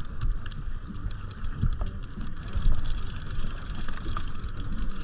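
Fishing boat's outboard motor running steadily at trolling speed, with wind buffeting the microphone and faint scattered ticks.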